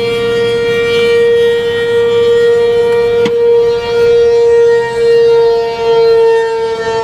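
A loud warning tone held on one steady pitch with many overtones, sounding for about eight seconds with a few brief dips in level and then cutting off abruptly.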